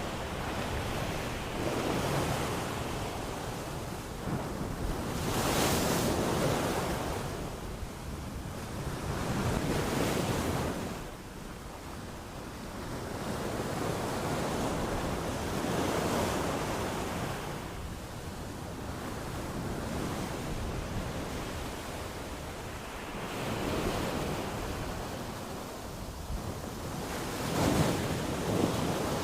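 Ocean waves breaking and washing in, each swell rising and falling away every four to six seconds.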